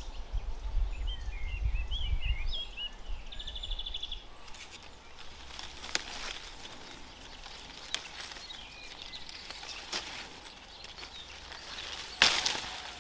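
Rural outdoor ambience: small birds chirping and then trilling in the first few seconds over a low rumble of wind on the microphone, then a few faint clicks. Near the end comes a short, loud rustle of cherry-tree leaves and stems as a hand pulls off a bunch of cherries.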